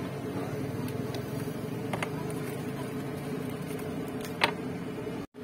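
A steady mechanical hum, with two sharp knocks about two seconds and four and a half seconds in, the second louder.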